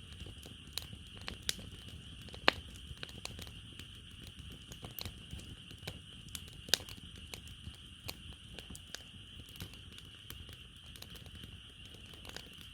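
Firewood burning in a fire-pit brazier, crackling and popping irregularly, with two louder pops about two and a half and seven seconds in. A steady high chirring of night insects runs underneath.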